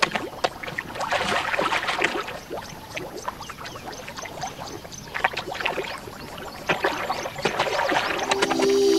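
Shallow muddy water splashing and sloshing as barbel catfish thrash and wriggle through the mud, with irregular wet slaps and crackles. Music comes in near the end.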